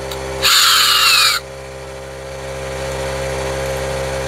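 Cordless drill run in one burst of about a second, its whine falling in pitch, while a bit is being set in the chuck. A steady low hum runs underneath.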